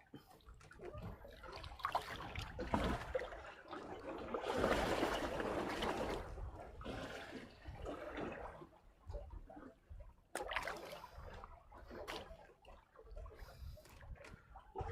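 Water splashing and trickling, loudest about five seconds in, with scattered small knocks.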